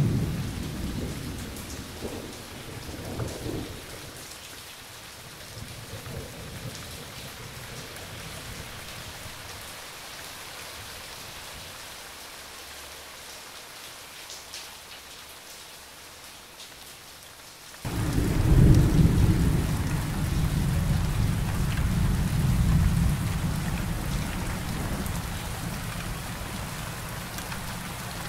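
Thunderstorm: steady rain with thunder. A rumble dies away over the first few seconds, leaving rain alone. About eighteen seconds in, a loud thunderclap breaks in suddenly and rolls on, slowly fading under the rain.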